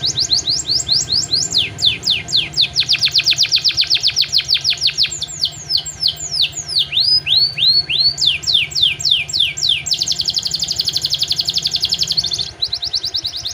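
Domestic canary singing a fast song of repeated downward-sweeping notes, several a second. Midway the notes turn slower and drop lower, then give way to a very fast trill before the first phrase returns near the end, over a low hum.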